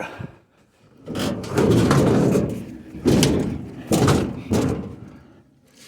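A long scrape followed by a few loud metal bangs and thuds as a scrapped refrigerator is shoved and set in place.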